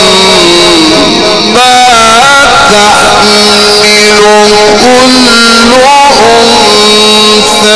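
Male Quran reciter chanting in the melodic mujawwad style: long, held, ornamented melismatic phrases that glide up and down in pitch, amplified and loud.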